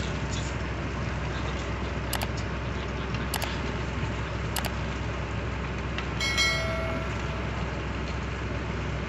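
Three sharp clicks about a second apart, then a short ringing bell chime about six seconds in: the like, subscribe and notification-bell sound effects of an end-screen animation. They sit over a steady low rumbling noise.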